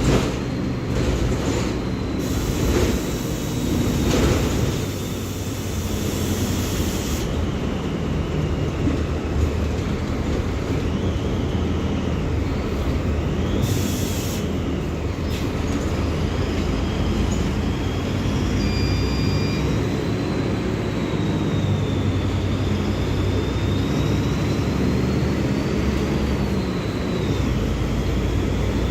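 Mercedes-Benz OF-1724L Bluetec 5 bus's six-cylinder diesel engine running steadily with a deep rumble. A thin high whine rises and falls over it, and there are a few short knocks in the first few seconds.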